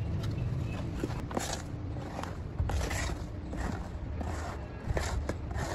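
Mason's trowel scraping and knocking wet cement mix against a wooden mould frame: irregular short scrapes and taps about once every half second to second, over a steady low rumble.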